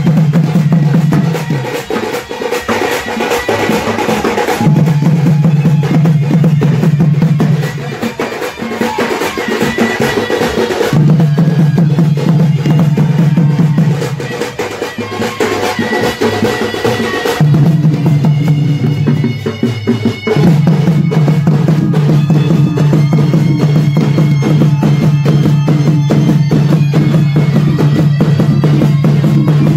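Live folk drum ensemble: drums beaten with sticks in a fast, dense rhythm, with a high melody over it and a low drone that breaks off and comes back every few seconds.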